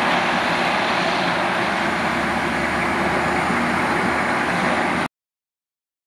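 Steady, loud engine noise as a Humvee towing a cargo trailer drives past; the sound cuts off abruptly about five seconds in.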